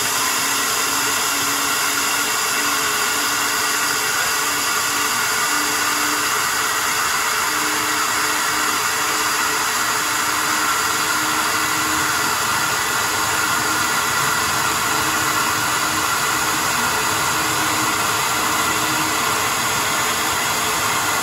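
Flow bench pulling air through a port of a Ford 302 tunnel port race cylinder head, its vacuum motors making a loud, steady rushing roar like a vacuum cleaner on steroids.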